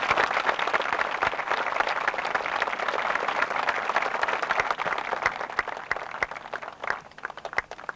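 Audience applauding, many people clapping at once, the clapping thinning to scattered claps near the end.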